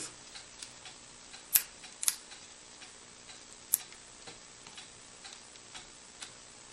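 Scattered small clicks and taps from hands working a peel-and-stick medical ID tag on a cycle helmet, with a few sharper clicks about one and a half, two and nearly four seconds in.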